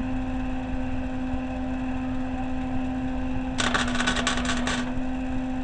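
Welding arc crackling for about a second, a little over halfway through, as a tack weld is laid on a steel transmission mount. A steady electrical hum runs underneath.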